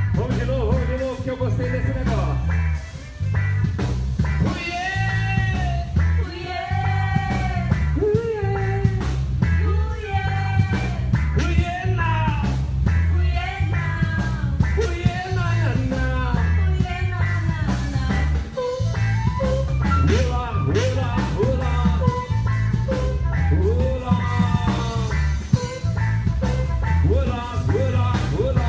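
Christian worship music: a singing voice carrying a melody over a heavy, steady bass beat, played loud through an amplified sound system.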